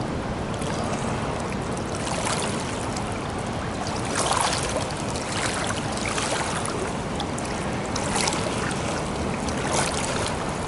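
Pool water splashing and swishing as a swimmer does breaststroke frog kicks and glides, with a louder splash about every two seconds as each kick drives through the water.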